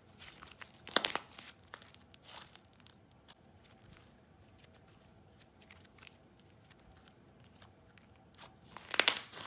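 Slime being squished and stretched by hand, making scattered crackling, crinkly sounds, with louder crackles about a second in and near the end.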